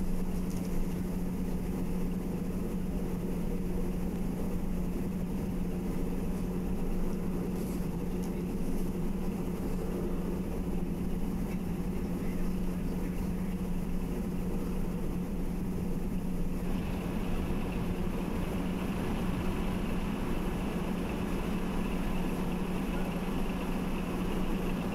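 Steady hum of a rocket-engine test stand on standby before firing, a constant low tone over an even rushing noise. About two-thirds of the way in, a steady higher hiss starts suddenly and carries on.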